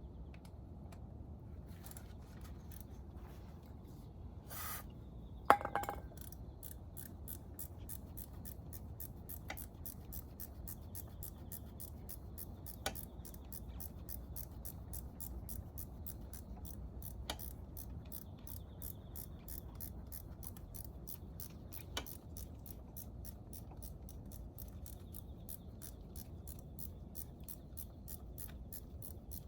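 A single sharp metallic clank about five seconds in, then fast, evenly spaced mechanical clicking that runs on steadily, with a few louder knocks among it.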